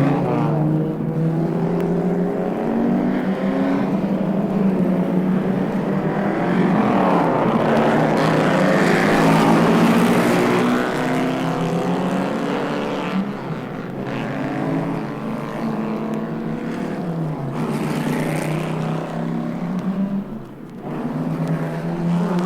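Car engines running at speed, their pitch rising and falling as they pass one another, loudest about halfway through.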